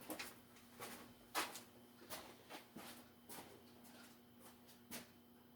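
Near silence in a small room: a few faint, scattered clicks and knocks, like small objects being handled, over a faint steady hum.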